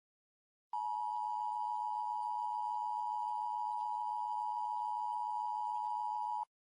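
Emergency Alert System attention tone: a steady, unwavering electronic tone near 1 kHz. It starts about a second in, holds for nearly six seconds and cuts off abruptly.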